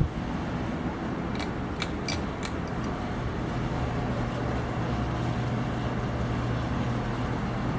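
Many ceiling fans running together: a steady rush of moving air with a low, even motor hum. Four light clicks come in quick succession between about one and a half and two and a half seconds in.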